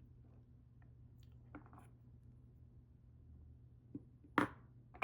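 Small metal tools and lock parts being handled on a work surface: a few light taps and clicks, the loudest a sharp click about four and a half seconds in, over a low steady hum.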